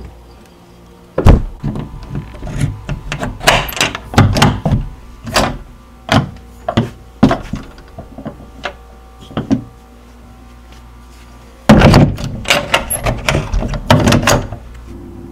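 A heavy thud, then a run of irregular knocks and bangs for several seconds. After a pause there is a second loud thud with another cluster of knocks.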